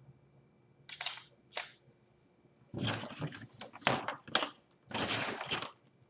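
Handling noise at a workbench: two short hissing scrapes, then longer rustles and scrapes mixed with sharp clicks, the last and longest ending just before the end.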